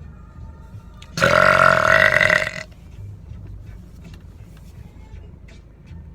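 A single loud, long belch lasting about a second and a half, starting about a second in.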